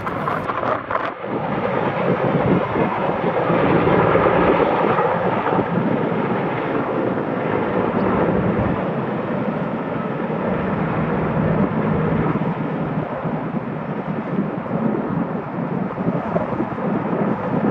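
Sikorsky CH-54A Skycrane heavy-lift helicopter flying close by: the steady, loud rumble and beat of its six-blade main rotor with its twin turboshaft engines, loudest about four seconds in.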